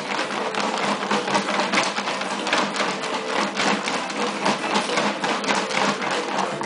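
Paper raffle tickets rattling and sliding inside a clear plastic storage tote as it is shaken to mix them: a dense, continuous run of rustles and clatters.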